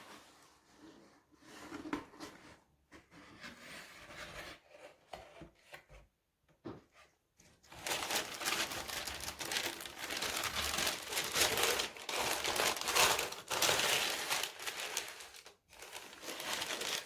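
Shoe-box packaging being handled and unwrapped by hand: scattered rustles and crinkles at first, then steady, louder crinkling from about eight seconds in.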